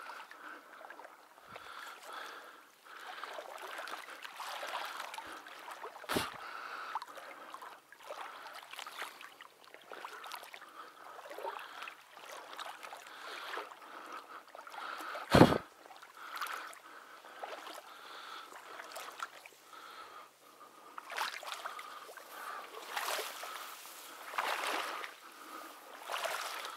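Water sloshing and splashing irregularly, as from wading or a small boat moving through shallow water, with two sudden sharp sounds about six and fifteen seconds in, the second the louder.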